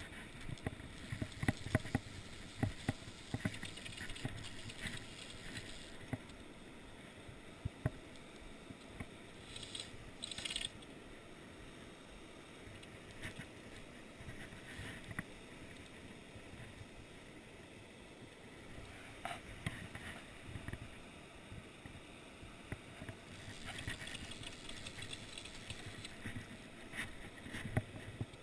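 Camera handling noise: irregular knocks, clicks and rubbing of hands gripping a cork fly-rod handle close to a GoPro housing, over a faint steady rush of river water.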